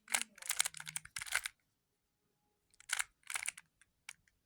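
Rubik's cube faces being turned by hand, quick plastic clacks in two runs separated by a short pause: a move sequence being repeated.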